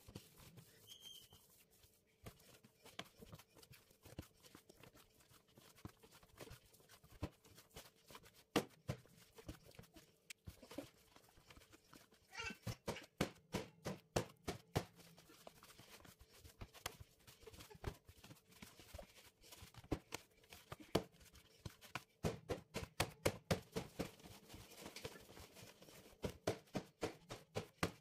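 Bun dough being kneaded by hand in a metal bowl: repeated soft thumps and squishes in quick runs, busiest midway and near the end, over a faint steady hum.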